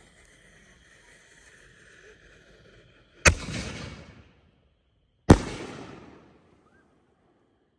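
Aerial firework shell being fired: a faint hiss while the fuse burns in the tube, then a sharp thump about three seconds in as the lift charge launches the shell, and about two seconds later a slightly louder bang as the shell bursts overhead, each dying away in a rumbling echo.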